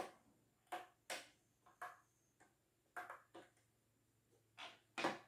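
Rotary dial of an old desk telephone being turned by finger and let go, giving a series of faint, irregular clicks.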